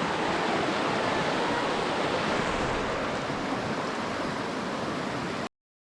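Creek water rushing over rocks in a stretch of white water, a steady rush that cuts off suddenly near the end.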